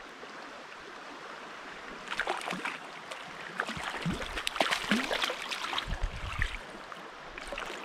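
Small stream flowing. About two seconds in, irregular splashing and sloshing at the water's surface begins and goes on for several seconds, with a few dull low bumps among it.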